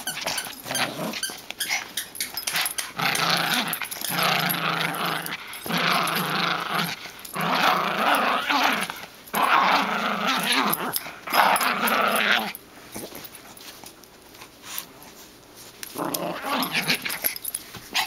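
Small dog growling during a game of tug with a rope toy: a run of long, rough growls with short breaks between them, then a pause and one more growl near the end.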